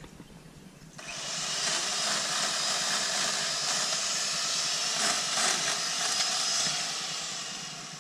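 Worx 8-amp electric pole chainsaw switched on about a second in and running steadily with a loud hiss, tapering off near the end. Its chain is running loose on the bar.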